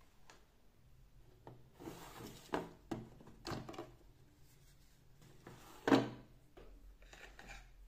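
Clear plastic desk drawers being handled: rustling and light clicks as a memo pad is taken out, then a drawer pushed shut with a sharp knock, the loudest sound, followed by a little paper rustling.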